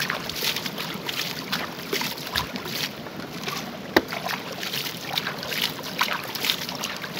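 Water splashing and sloshing irregularly as a plastic toy dump truck is rinsed in shallow muddy water, its bed filling and draining. A single sharp click about four seconds in.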